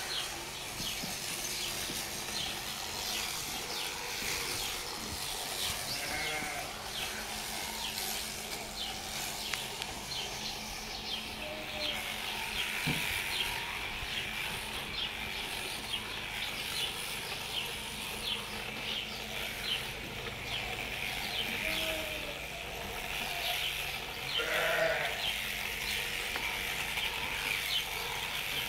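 A sheep-shearing handpiece running steadily through a ewe's fleece, with a steady hum and a dense, fine ticking. Sheep bleat several times over it, the loudest call about 25 seconds in.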